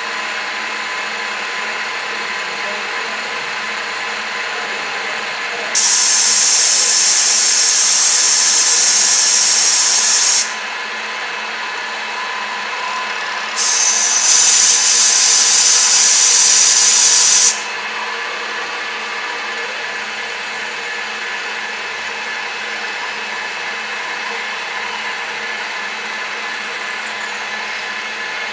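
TOS FN20 milling machine running under CNC control, a steady machine hum with faint steady tones as the end mill cuts the flange. Twice, about six seconds in and again near the middle, a loud high-pitched hiss comes in abruptly, runs for about four seconds and cuts off.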